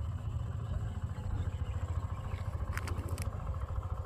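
Wind buffeting the phone's microphone, an uneven low rumble, with a short cluster of clicks about three seconds in.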